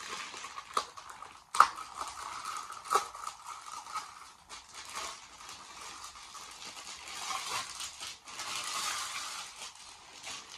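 Clear plastic sleeve crinkling and crackling as a rolled diamond-painting canvas is worked out of it by hand, with sharp crackles about one and a half and three seconds in and a denser run of crinkling near the end.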